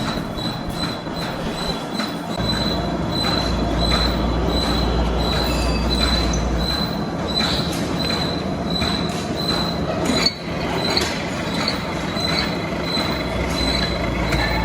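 Metal lathe cutting steel, with a steady high-pitched squeal from the tool that pulses evenly over a dense grinding noise.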